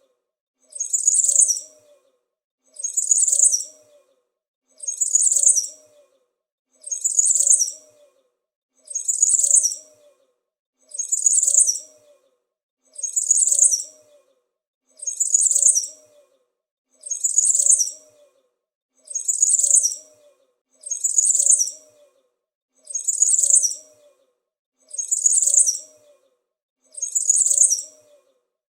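A small bird's high-pitched chirping call, the same short call repeated at an even pace about every two seconds.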